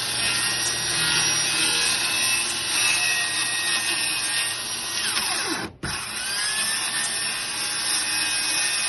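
Electric circular saw running and cutting through a wooden board. About six seconds in the motor's whine falls and the sound briefly drops out as the trigger lets go; then the saw spins back up and keeps cutting.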